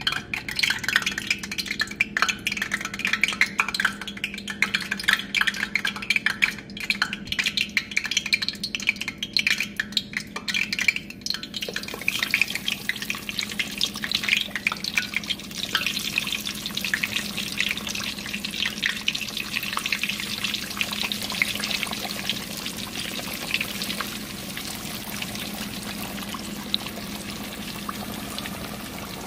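Battered whiting fillets deep-frying in a pot of hot oil. The oil crackles and pops sharply at first, then settles about halfway into a denser, steadier sizzle.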